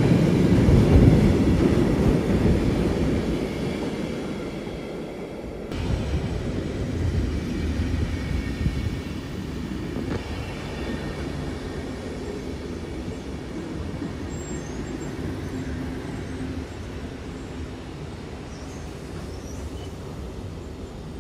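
Freight train of tank and covered wagons rolling past on the rails, loudest at the start and fading. About six seconds in it changes abruptly to SBB passenger coaches rolling past with a lower, steadier rumble.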